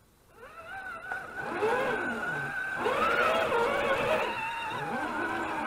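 Electric motor and gearbox of an RC scale crawler whining as it creeps over rocks, the pitch rising and falling with the throttle. It starts faint and gets louder after about a second and a half.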